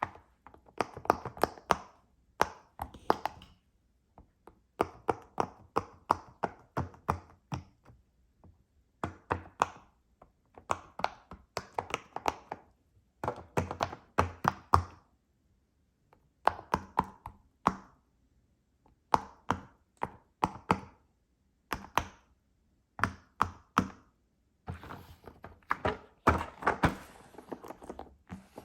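Squishy pop-it fidget ball being squeezed and handled, giving quick clusters of soft pops and taps in bursts of a second or two with short pauses between.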